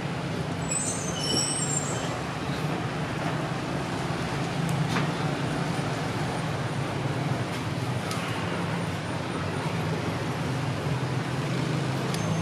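Steady low rumble with a constant hum under it, like engine or traffic noise, with a few short high-pitched chirps about a second in.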